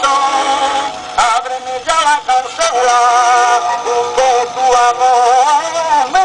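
Music: a man singing a song with accompaniment, his held notes wavering with vibrato.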